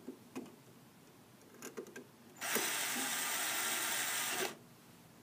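A few small clicks of handling the screw and card, then a Bosch cordless screwdriver runs steadily for about two seconds, driving a mounting screw into the receiver card's plate, and stops.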